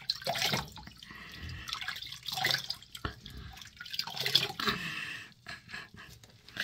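Water splashing and dripping at a bathroom sink as a face is rinsed with cupped hands, in a run of irregular splashes.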